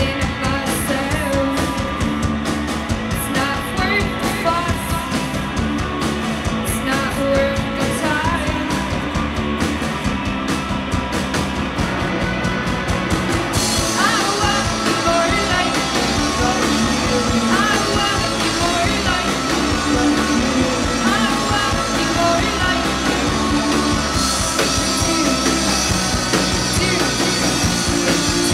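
A live rock band playing: electric guitar, electric bass and a drum kit, with a woman singing.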